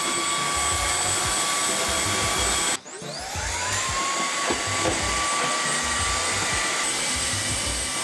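Xiaomi Mi handheld cordless vacuum cleaner's brushless motor running with a steady high whine. About three seconds in the sound cuts off abruptly, then the motor spins back up with a rising whine to the same pitch and runs steadily again.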